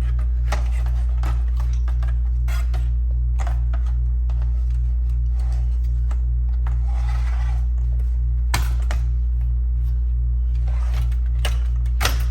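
A steady low electrical hum under scattered clicks and light clatter of screws and metal parts of a Macintosh Classic's frame being handled, with a short scraping rustle about seven seconds in.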